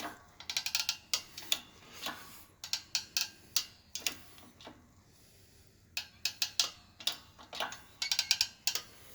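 12-ton hydraulic shop press being pumped by hand, its jack mechanism clicking in quick bursts of sharp ticks with a quieter gap about halfway through, as it slowly pushes a press-fit wrist pin out of a piston.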